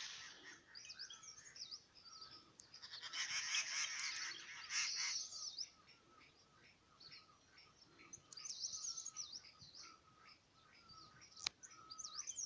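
Several birds chirping and calling in a busy chorus, with a dense burst of calls about three to five seconds in. A single sharp click near the end.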